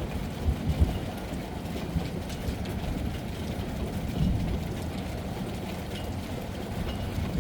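Heavy rain as a steady, muffled low rumble, with a few soft thumps about a second in.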